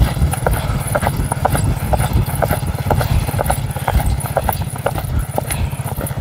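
A ridden horse's hooves clip-clopping at speed on a hard dirt track, a quick even rhythm of about four or five hoofbeats a second, over a steady low rumble.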